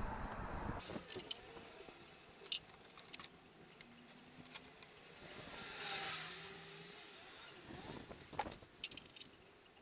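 Faint handling noises from a plastic petrol can: a few sharp clicks and knocks as its cap is worked off and the can is lifted, with a soft hiss that swells and fades for about two seconds in the middle. The moped's engine is not running.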